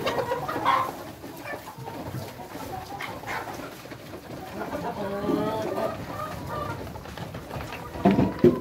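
A large flock of laying hens, around 350 birds, clucking and calling together in their hen house, many calls overlapping. A louder burst of sound comes just before the end.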